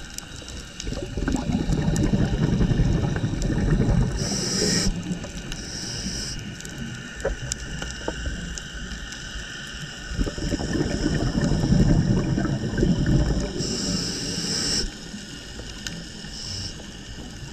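Scuba diver breathing through a regulator underwater: two long exhalations of rumbling bubbles, starting about a second in and again about ten seconds in, each ending with a short hiss of the next inhalation. Scattered faint clicks run underneath.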